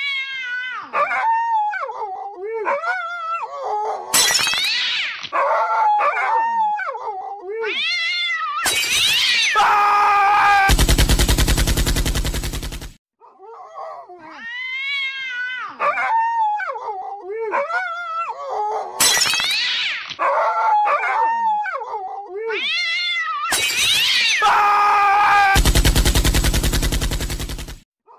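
Cat meowing and yowling in a long run of short gliding calls, broken twice by a harsh, buzzing stretch lasting a couple of seconds. The same stretch of calls plays twice over, as a looped recording.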